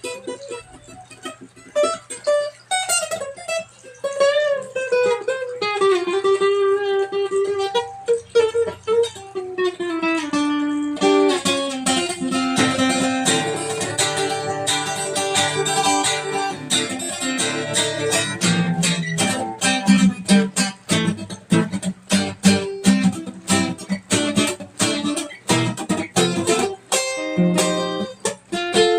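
Solo plucked string instrument playing a melody. The first notes slide and bend in pitch, and from about a third of the way in the playing turns fast and dense, with rapid repeated plucking or strumming.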